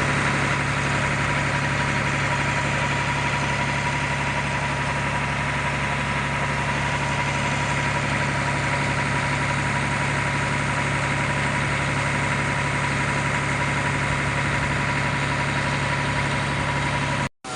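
A diesel engine idling steadily, with a faint constant high whine over the low running note.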